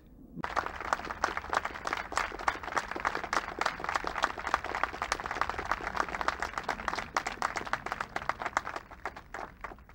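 Audience applauding: many hands clapping together, starting about half a second in and dying away near the end.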